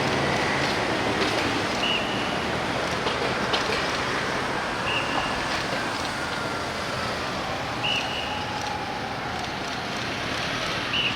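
Steady road traffic noise of vehicles moving through city streets, with a short high beep repeating about every three seconds and faint sliding tones in the middle.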